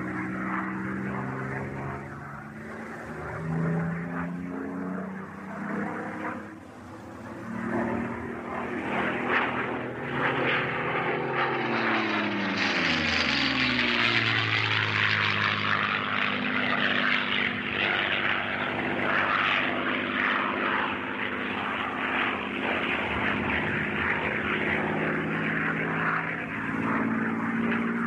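Supermarine Spitfire flying past, its piston engine and propeller droning. The engine note falls steeply in pitch as the plane passes, about halfway through, and it stays loud afterwards.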